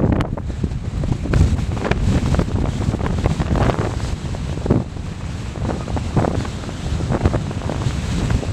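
Strong gusty wind buffeting the microphone: a heavy low rumble that swells and drops with each irregular gust.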